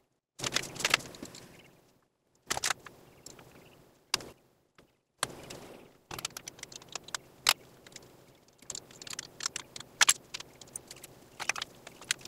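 Metal battery cable terminals and hardware clinking and rattling as they are handled and fitted onto a car battery's posts: scattered sharp clicks and light jangles, broken by a few sudden cuts to silence.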